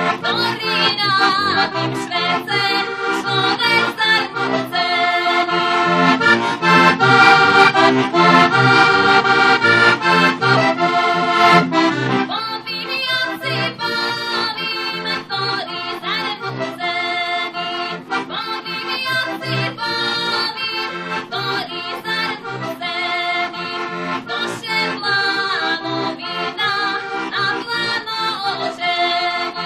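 Heligonka, the Slovak diatonic button accordion, playing a lively folk dance tune: sustained reed chords and melody over a steady, pulsing bass, a little louder for a few seconds midway.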